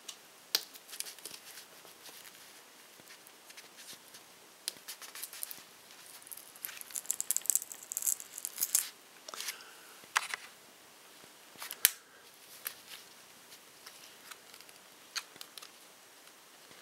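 Plastic pry tool working into the edge of a Nexus 7 tablet to pry its glued glass loose from the frame: scattered clicks and scrapes, a burst of crackling about halfway through, then two sharp clicks.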